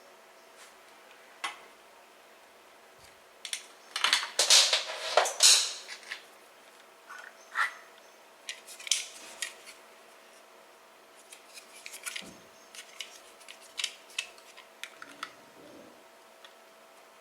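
Irregular clicking and clattering of small hard objects being handled, with a loud burst of rattling and scraping about four to six seconds in and lighter clicks after it.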